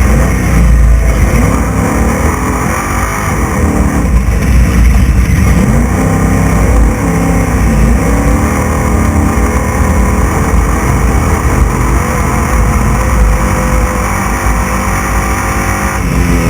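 Class 6100 off-road race truck's engine heard from on board, revving up and down repeatedly over a heavy low rumble.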